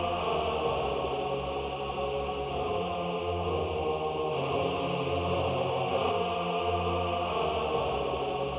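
Music: a sustained choir-like chant or drone of held notes over a low bass that swells and fades every second or two.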